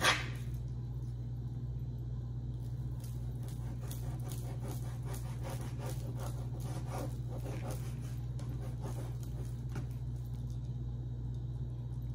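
Chef's knife chopping raw bacon on a plastic cutting board: a run of quick, uneven knocks, one louder right at the start, over a steady low hum.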